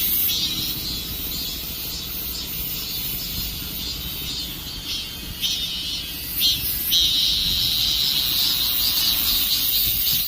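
Chorus of many cicadas singing from a tree: a high buzz that pulses on and off, then settles into a steady drone about seven seconds in, over a low rumble.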